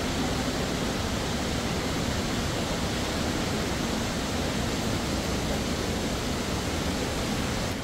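Steady rushing of flowing river water, an even roar with no breaks.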